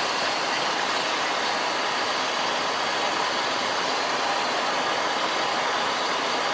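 Steady rushing noise in the cockpit of a Cessna Citation jet climbing after takeoff: engine and airflow noise, even and unchanging.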